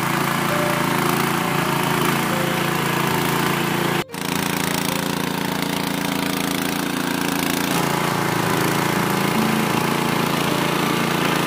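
Motorcycle engine running steadily and belt-driving a small flour mill as it grinds chickpeas into sattu. The sound is a continuous machine drone, with a split-second dropout about four seconds in.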